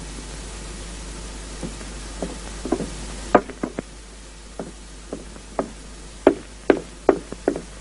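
Quick footsteps on a hard floor: a run of sharp separate steps, roughly two a second, getting louder toward the end.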